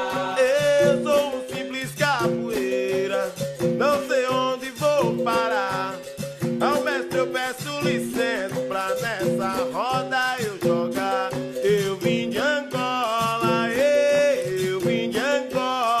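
Capoeira music: berimbaus and an atabaque drum keep up a steady rhythm under a sung melody.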